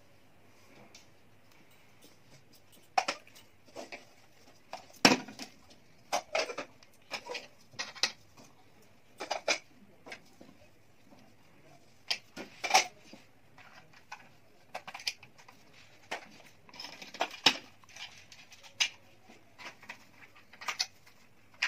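Plastic toys knocking and clattering as they are picked up, dusted and set back down on a tabletop: irregular knocks starting about three seconds in, with a short stretch of soft rustling brushing about two-thirds of the way through.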